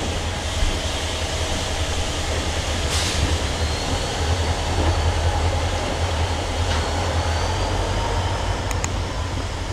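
Freight train cars rolling past in a steady rumble, with a faint thin wheel squeal from about halfway through.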